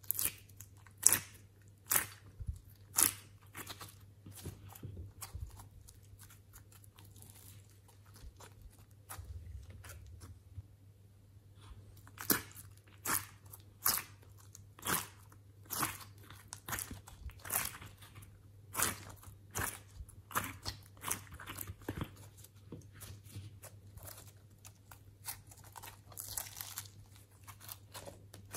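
Glossy slime popping and crackling as hands press and peel it out of a silicone honeycomb mold. There are sharp sticky pops, often about one a second, with a quieter stretch a few seconds in.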